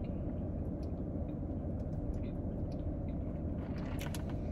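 Steady low rumble of a parked car's engine running, heard from inside the cabin, with a few faint small clicks.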